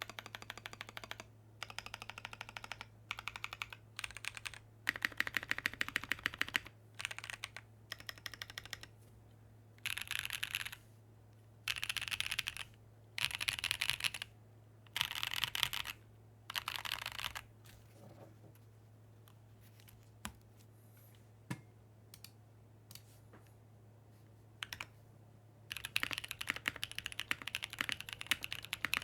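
Typing on a Monokei Tomo mechanical keyboard with Cheesecake tactile switches (POK housings, LY stems), an aluminium top-mount plate and GMK keycaps: runs of rapid keystrokes in short bursts. Past the middle there are only a few single key presses, then steady typing resumes near the end.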